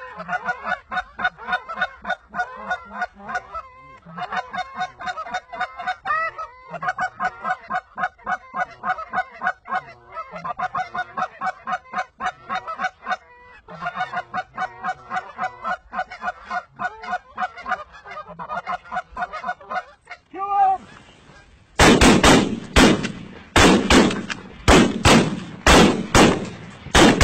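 Rapid Canada goose honks and clucks, several a second, running on for about twenty seconds. After a short lull, a fast volley of shotgun shots from several guns, about two a second.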